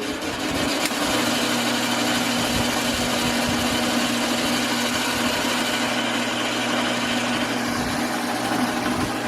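A small engine or motor running steadily at an even speed, building up in the first second.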